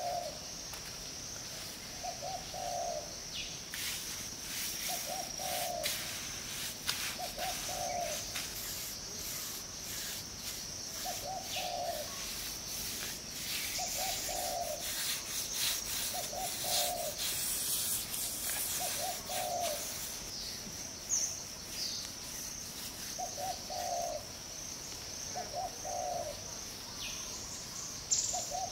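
A dove cooing a short two-part coo over and over, about every two seconds, over a steady high buzz of insects. Light scraping and rustling of handwork comes and goes from about four seconds in until around twenty seconds.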